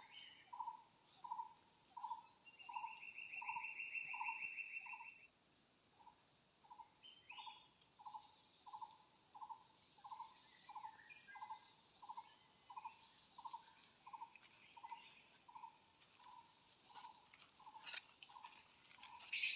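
Forest insects chirring steadily, with a short note repeated at an even pace, about three every two seconds, from an unseen night creature. A brief buzzing insect trill comes a few seconds in, and soft rustles and clicks come near the end.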